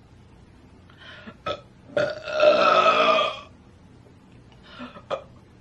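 A girl's long, loud burp starting about two seconds in and lasting about a second and a half at a steady pitch. A few short clicks come before it and again near the end.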